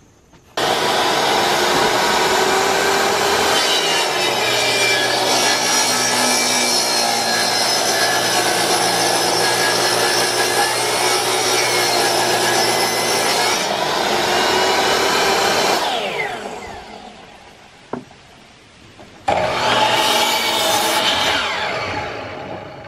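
Jobsite table saw ripping a board, cutting steadily for about fifteen seconds before its motor winds down. A few seconds later a power miter saw makes one short cut and spins down.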